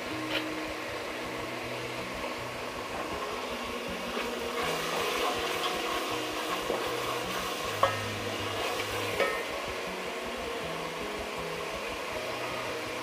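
Polao masala of fried onion, whole spices and ginger-garlic paste sizzling in oil and a little water in a pot, stirred with a wooden spatula. A few sharp knocks of the spatula against the pot, the clearest about 8 and 9 seconds in.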